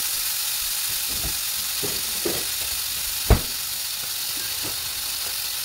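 Food sizzling steadily as it fries in a hot pan, with a few light knocks and one sharp, louder knock a little past the middle.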